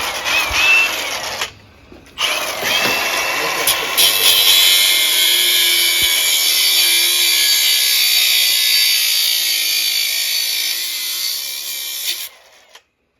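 Angle grinder with a flap disc grinding a steel quad frame. It spins up and grinds briefly, stops for a moment, then spins up again and grinds steadily for about ten seconds before cutting off.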